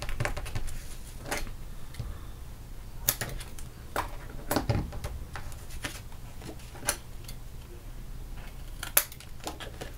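Hands working cardstock and a roll of double-sided adhesive tape: scattered soft taps and rustles of paper and tape, then small scissors snipping the tape end at a slant near the end.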